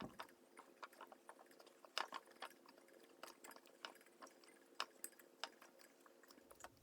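Faint, irregular clicks and light knocks of hand tools on the drill press head while its locking lever and nut are worked loose, with a few sharper clicks among them.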